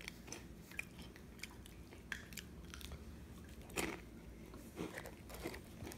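Faint, scattered mouth clicks and smacks of a baby eating yogurt and a snack, with a slightly louder smack about four seconds in.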